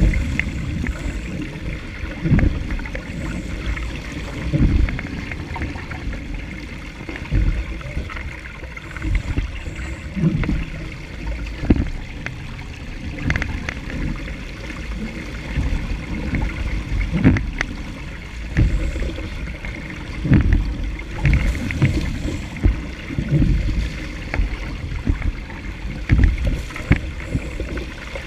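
Water rushing and splashing along the hull of a Laser sailing dinghy moving fast through chop, with irregular low thumps every second or two as the hull slaps into the waves.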